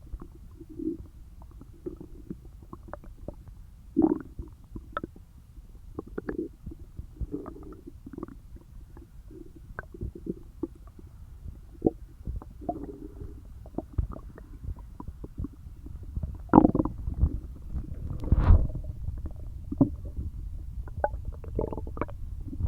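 Empty, hungry stomach gurgling and growling: many short gurgles and squelchy pops, with two louder drawn-out rumbles about two-thirds of the way through.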